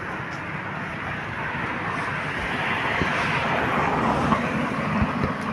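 A vehicle passing on the road: tyre and engine noise swells to a peak around the middle and fades again.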